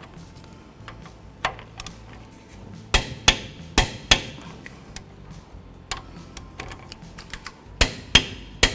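Torque wrench clicking at its set torque as the caliper mounting bolts are rechecked, showing they are tight. Sharp metallic clicks come in pairs about three seconds in and again near the end, with fainter ticks between.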